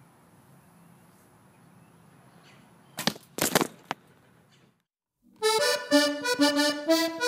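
Accordion music begins about five seconds in, a melody of held, pitched notes. Before it, faint background hiss and three short loud bursts of noise about three seconds in.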